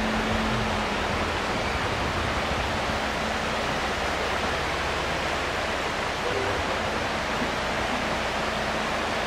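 Shallow, rocky river rushing over stones and riffles: a steady, even rush of water.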